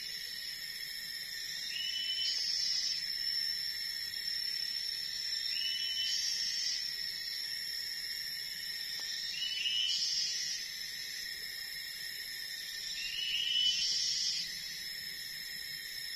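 Forest ambience: a steady, high-pitched drone of insects, with a short rising animal call repeating about every three to four seconds.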